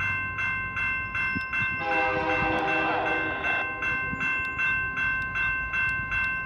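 Grade crossing bell ringing steadily, about two strokes a second. In the middle, the approaching freight train's lead locomotive, a CP SD70ACU, sounds its multi-chime horn once for about two seconds.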